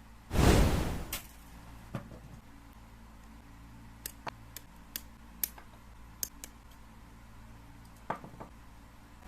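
Plastic Gundam model-kit parts being worked by hand: a short, loud rustling noise about half a second in, then a scattering of small, sharp plastic clicks, like parts being snipped from the runner and snapped together.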